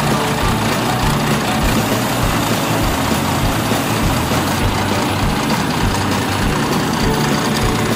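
Rice combine harvester running: a loud, steady din of engine and machinery with a low, regular pulsing underneath.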